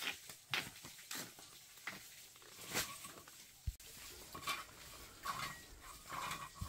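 About a dozen irregular light knocks and clinks of kitchenware being handled. One sharper knock comes about halfway through, and a few ringing clinks come near the end.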